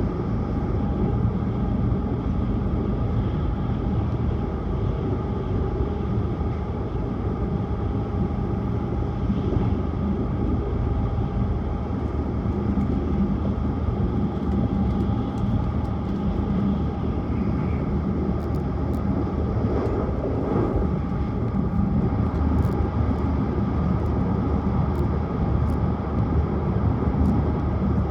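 Tohoku Shinkansen high-speed train running steadily at speed, heard from on board: a continuous rumble and rush of wheel, track and air noise with a low hum. There are a few faint light ticks in the second half.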